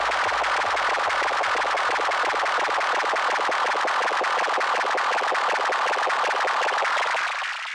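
End of a hard acid techno mix. The kick drum's steady low thump grows fainter and drops away within the first few seconds, leaving a dense hiss of rapid fine crackle that fades out near the end.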